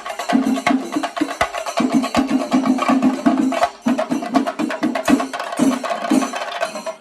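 Chenda melam: a Kerala temple ensemble of chenda drums beaten with sticks in a fast, dense rhythm, the strokes packed closely together. The rhythm drops out briefly a little before the middle.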